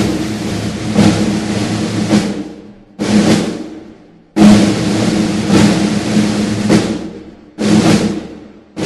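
Ceremonial snare drum roll played while the wreaths are laid, loud and sustained. It breaks off and starts again suddenly several times.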